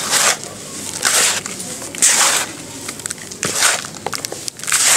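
Hands crushing and crumbling clumps of dry, dark dirt in a plastic tub: gritty crunching rushes as handfuls break apart and sift down, five of them, about one a second.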